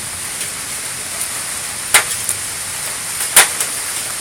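Heavy rain starting to come down hard, a steady hiss broken by a few sharp ticks of drops striking close by, the loudest about three and a half seconds in.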